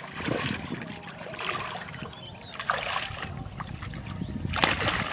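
Hands splashing and sloshing in shallow muddy water as they grope along the bottom, in several separate splashes; the loudest comes near the end.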